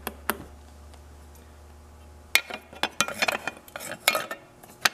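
Metal clinking and scraping as a round metal ring is fitted over a rebuilt throttle-body-injection unit by hand: a couple of light clicks, then a run of sharp clinks from about halfway in.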